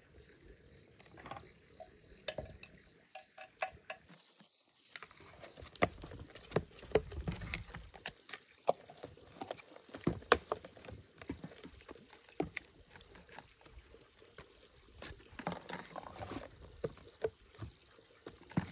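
Thin plastic cups and snap-on lids clicking and knocking as they are handled, lidded and set down on an aluminium tray: a string of irregular sharp clicks.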